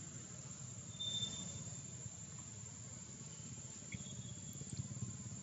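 Insects trilling faintly, short high cricket-like tones about a second in and again around four seconds, over a low steady rumble.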